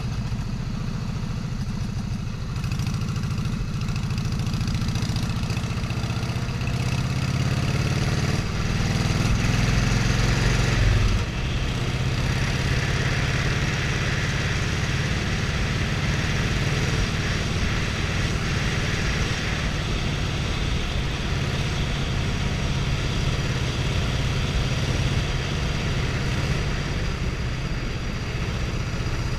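A motor vehicle's engine running steadily, its pitch climbing for several seconds and then dropping suddenly about eleven seconds in, as at a gear change, before it settles back to a steady run.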